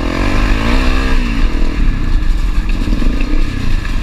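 Honda CRF250L's single-cylinder four-stroke engine revving as the bike accelerates along a rocky trail, rising in pitch over the first second or so and then settling, with steady wind rush on the helmet microphone.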